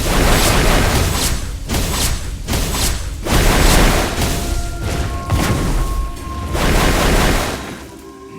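Loud booming, rumbling noise in several swells, with a few held music tones coming in around the middle and the level dropping away near the end.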